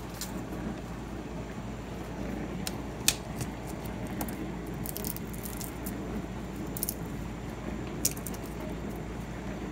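Scattered small clicks and crinkles of hands handling garlic, two sharper clicks standing out about three and eight seconds in, over a steady low hum.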